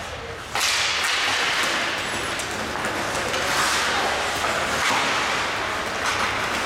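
Ice hockey play on the rink: skates scraping the ice and sticks working the puck, a steady scraping hiss that starts suddenly about half a second in as play begins from a faceoff.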